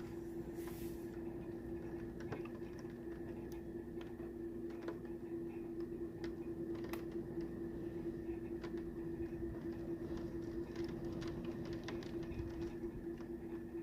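Scattered, irregular taps of raindrops over a steady low hum.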